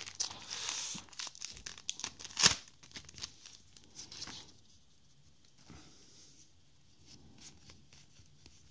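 Foil trading-card booster pack torn open and its wrapper crinkled, with a sharp loud crackle about two and a half seconds in. After that come only faint, soft sounds of the cards being handled.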